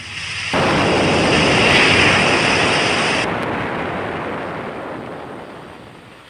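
Loud rushing noise that starts suddenly about half a second in, loses its hiss abruptly a little past halfway, and then fades out over the last few seconds.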